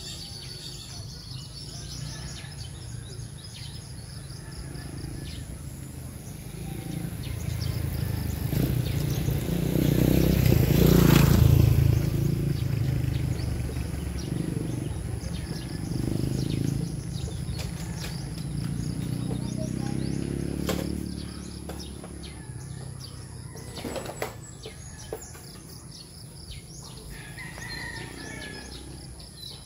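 Rural morning ambience: birds chirping over a steady high-pitched hum, with a low rumble that builds to its loudest about a third of the way in and then slowly fades.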